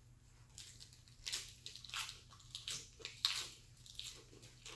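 A person biting into and chewing a crisp raw lettuce leaf: irregular short crunches, about two or three a second.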